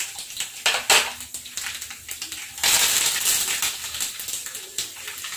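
Hot peanut oil in a small iron kadai sizzling and crackling as dried red chillies, mustard seeds and curry leaves are dropped in for a tempering, with a louder burst of spluttering about two and a half seconds in.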